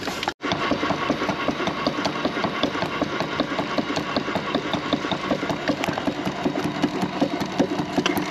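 4-inch scale Foster steam traction engine running under steam, its crankshaft and motion work clattering in a quick, even beat.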